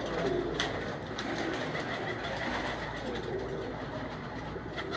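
Domestic pigeons cooing, low wavering coos overlapping one another, with a short flutter of wings about half a second in.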